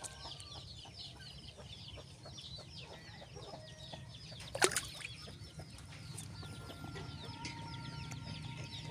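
Birds chirping continuously in quick repeated notes, several a second, with one sharp knock about halfway through.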